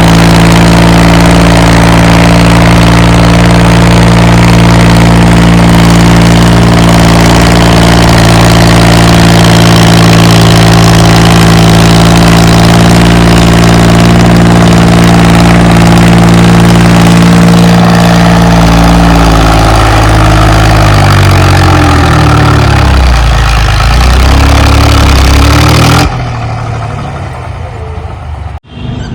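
HMT tractor's diesel engine running at a steady speed through a newly fitted silencer. About 19 seconds in it slows, falling in pitch, then cuts off suddenly about 26 seconds in to a much quieter stretch.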